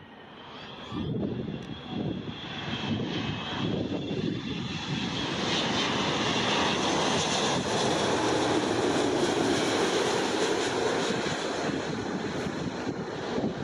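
Airbus A380's four jet engines on final approach with gear down, passing low overhead. The jet noise grows louder over the first several seconds, with a high whine on top, and stays loud as it passes, easing slightly near the end.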